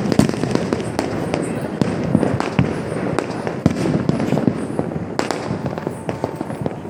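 Many fireworks and firecrackers going off at once: a dense, continuous crackle of overlapping bangs, with a few louder reports standing out, the sharpest about five seconds in.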